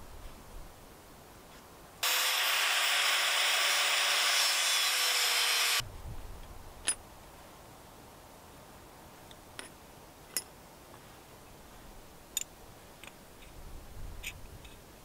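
A power tool runs steadily at one even pitch for about four seconds, starting and cutting off abruptly. It is followed by a few scattered light metallic clicks as cut steel pieces are handled and set down.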